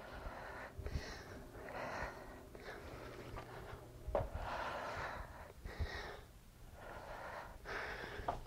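A woman breathing hard while doing dumbbell reverse lunges: a noisy breath every second or so, with a few soft low thuds.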